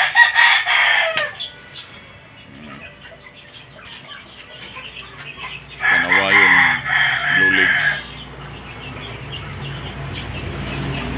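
Kanawayon gamefowl rooster crowing twice: a short crow right at the start, then a full crow of about two seconds midway.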